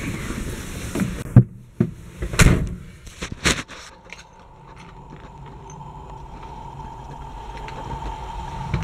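A few knocks and thumps of a military Mercedes G-Class door and cab being climbed into and shut, the loudest about a second and a half in; then a steady low hum with a thin high whine.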